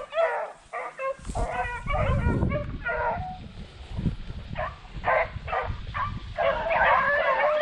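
A pack of beagles baying on a rabbit's trail, several hounds giving tongue at once. The calls thin to a few separate short bays in the middle, and the full pack chorus picks up again near the end.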